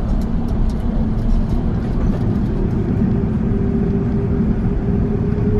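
Airbus A380 cabin noise on the ground before take-off: a steady, loud rumble of the engines and air conditioning with a constant low hum, and a second steady higher tone coming in about halfway through.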